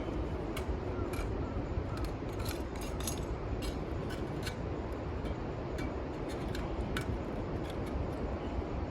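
Scattered light clicks and clinks of small camping gear being handled and set in place, over a steady low outdoor rumble.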